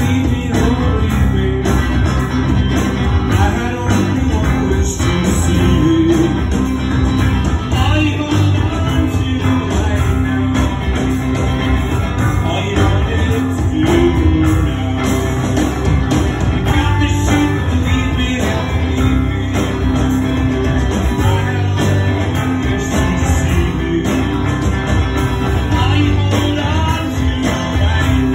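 Live rock band playing: electric guitars and drums, loud and continuous.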